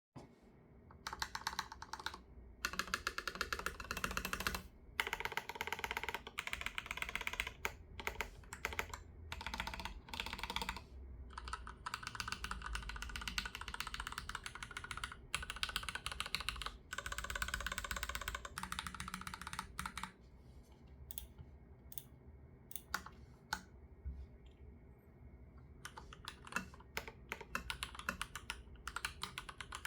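Typing on a Leopold FC980M mechanical keyboard with Cherry MX2A Black linear switches on a hot-swap PCB: fast runs of keystrokes broken by short pauses. Around twenty seconds in it slows to scattered single key presses, then picks up again near the end.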